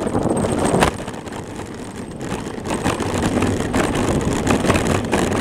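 Rumbling road and wind noise from a camera mounted on a moving bicycle, with a rapid clatter of knocks as the shaking mount rattles over the road surface.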